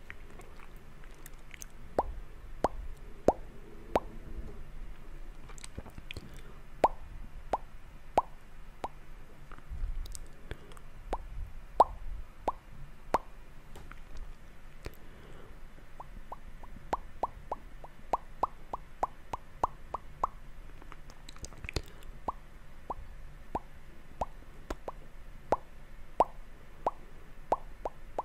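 Close-miked ASMR mouth sounds: short wet tongue and lip clicks, scattered irregularly, with a quick run of about three a second past the middle.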